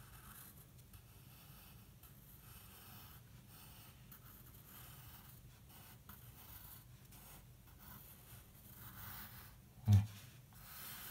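Pencil scratching on paper in a run of short drawing strokes, sketching a vase outline. A brief low thump comes near the end and is the loudest sound.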